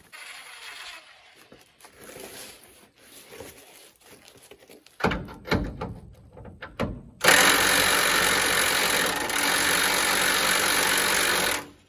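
Corded electric power tool worked up against the truck's frame to free the box body from the chassis: a few short bursts, then one steady run of about four seconds that stops abruptly. Quiet shuffling before it.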